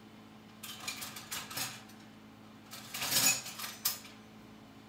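Metal cutlery clattering as someone rummages through utensils looking for a butter knife: a spell of rattling about a second in, then a louder clatter about three seconds in ending in a sharp clink.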